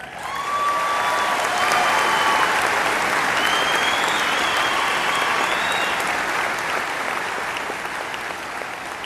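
Audience applauding, swelling up in the first second, holding steady, then easing off near the end.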